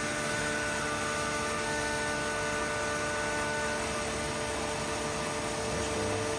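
PBT 35 three-roll section bending machine running, a steady mechanical hum with several constant tones and a faint whine that comes and goes higher up.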